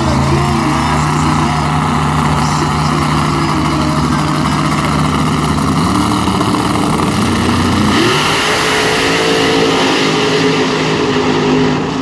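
Two drag race cars' engines running loud at steady revs on the starting line, the pitch stepping up about six seconds in and rising again about eight seconds in, then holding high.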